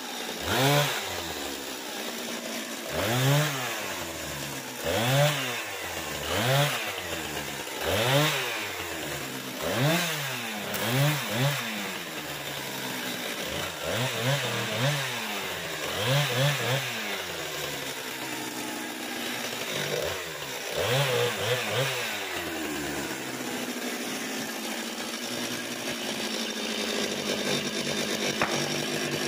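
Husqvarna two-stroke chainsaw cutting short pieces of pallet wood, with a freshly sharpened chain. The engine revs up and falls back over a dozen times, once for each quick cut, then settles to a steadier sound for the last several seconds.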